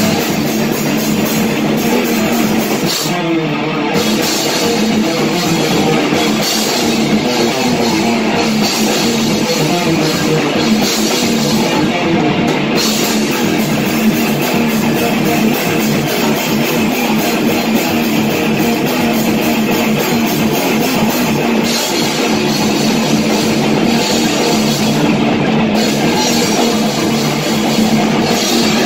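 Live rock band playing: electric guitar over a drum kit, loud and steady.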